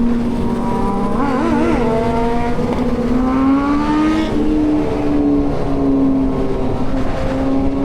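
Motorcycle engines running at steady cruising speed in a convoy, with wind and road noise. The main engine's pitch rises a little about three seconds in, and other bikes' engines rise and fall around it.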